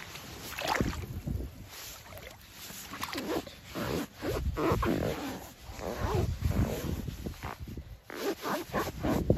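Baffin Tractor rubber boots squeaking in a muddy puddle as the feet twist and rub, a run of irregular rubbery squeaks mixed with water sloshing, busier in the second half.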